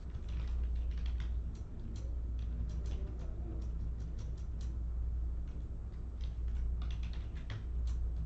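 Computer keyboard being typed on: irregular short clicks, over a steady low hum.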